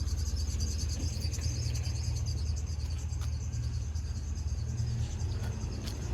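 Small portable air compressor running steadily as it pumps air into a water heater expansion tank's air chamber, slowly building its pressure toward 60 psi.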